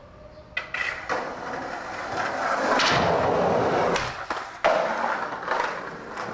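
Skateboard wheels rolling over tiled paving, with sharp board clacks and impacts: two light clacks near the start, more around three and four seconds in, and a loud slap about four and a half seconds in, then more rolling.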